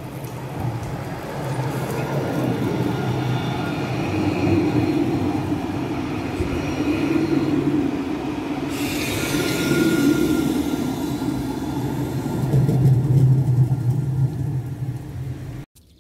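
Tram running on its rails: a steady rumble with a low hum and a faint whine, growing louder a few seconds before it cuts off abruptly near the end.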